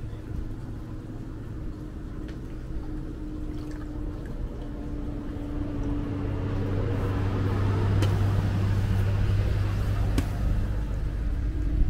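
A motor vehicle's engine hum swells from about six seconds in and eases near the end, as a vehicle passes on the road. Over it come light water splashes from a hand dipped in a bowl and two sharp taps as the dough is handled.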